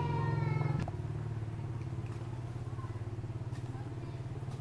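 A monkey's drawn-out, high, slightly falling cry, ending about a second in, over a steady low mechanical hum.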